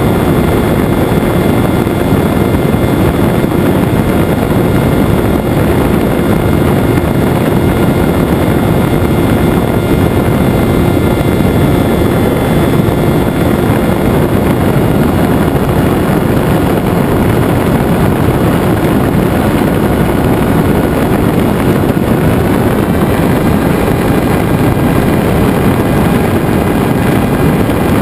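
Venturi FPV flying wing in flight: a steady, loud rush of wind over the airframe with the thin whine of its motor and propeller running underneath. The whine steps up slightly in pitch about 23 seconds in.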